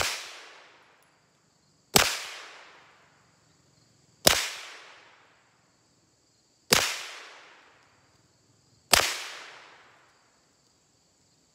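Five suppressed 9mm shots from a Walther PPQ pistol fitted with a T&J Tactical suppressor, fired one at a time about two seconds apart. Each is a sharp crack that trails off over about a second. Crickets chirp steadily underneath.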